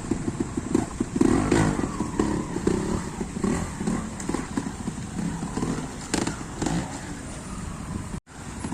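Trials motorcycle engine running and revving up and down in short bursts as the bike is ridden through a section, with a few sharp knocks. The sound cuts out abruptly for a moment near the end.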